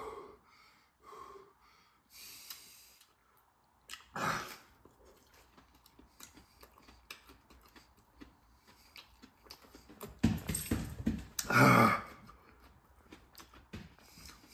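A man breathing hard through the burn of a Carolina Reaper pepper: short hissing breaths and huffs, a louder one about four seconds in, and two loud, strained exhales from about ten to twelve seconds in.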